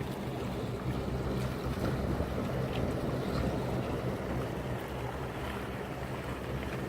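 Strong gusty wind buffeting the microphone: a steady, low rushing noise.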